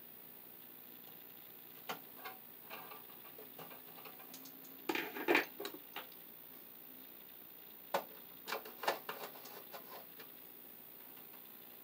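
Hand wire strippers clicking and scraping as the insulation is stripped from a white neutral wire: scattered small clicks, with louder clusters of scraping about five seconds in and again around eight to nine seconds.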